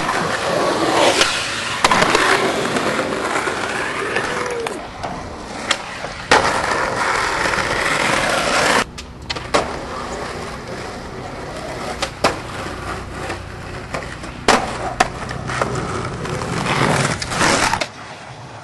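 Skateboard wheels rolling on concrete, broken by several sharp wooden clacks of tail pops and landings.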